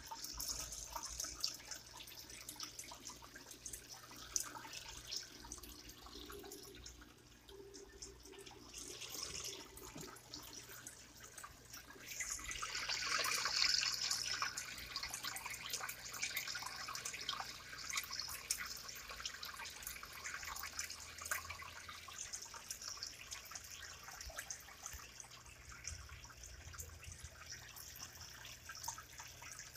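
Aquarium aeration: air bubbles rising and breaking at the water surface, heard as a steady trickle with many small pops and drips. It swells louder for a couple of seconds about twelve seconds in.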